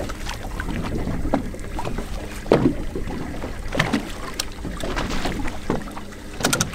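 Open water against a small fishing boat's hull, with wind on the microphone, a faint low steady hum and scattered short knocks and clicks.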